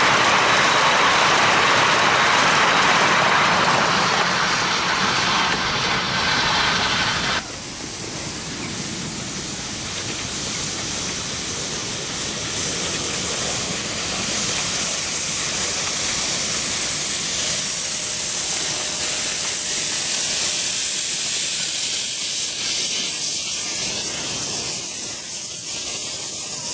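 Miniature railway coaches rolling past close by, wheels running on the rails. After an abrupt cut, a miniature steam locomotive hauls a passenger train past with a steady hiss of steam that grows louder.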